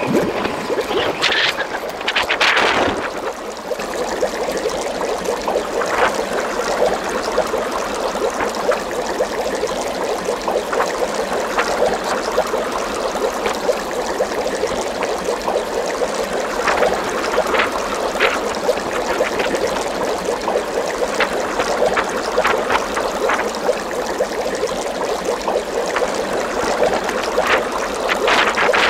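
Steady trickling, bubbling water sound with many small ticks and pops, running on without a break.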